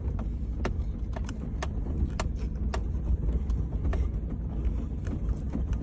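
Vehicle running with a steady low engine and road rumble, heard from inside the cab, with irregular sharp clicks and rattles about twice a second as it rolls over rough ground.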